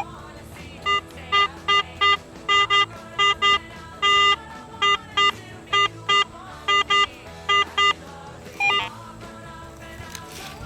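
Garrett AT Pro metal detector sounding a string of short beeps, about two a second with one longer tone near the middle, as the coil is swept over a target. It rings up in the high 40s on a buried flat button.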